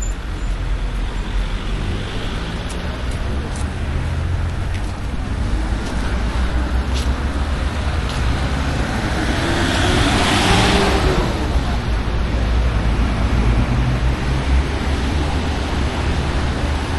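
City street traffic with a steady low rumble of engines and tyres. A vehicle passes close about ten seconds in, its tyre hiss swelling and fading.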